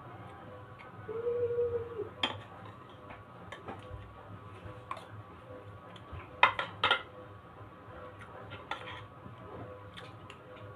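Metal spoon clinking and scraping against ceramic plates while eating rice and egg, with scattered light clicks and two louder clinks a little past six seconds in.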